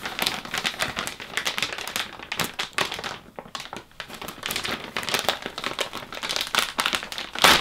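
Irregular rustling and crinkling from handling the chair's memory-foam headrest pillow, with a louder crackle near the end.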